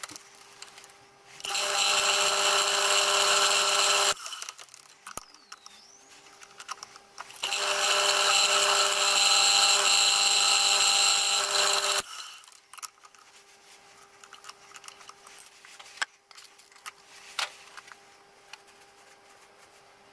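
Milling machine drilling clearance holes into a steam-cylinder end cover: two loud runs of a steady, many-toned whine a few seconds each, the second longer. Afterwards scattered clicks and knocks as the rotary table is turned on to the next hole position.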